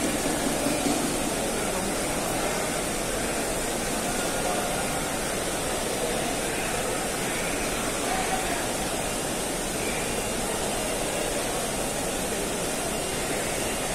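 Heavy rain falling steadily, with the murmur of a large crowd's voices underneath.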